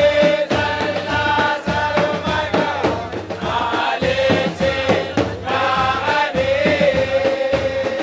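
Male voices chanting a Hausa song through microphones and loudspeakers, a melody of long held notes, over a regular low beat about twice a second.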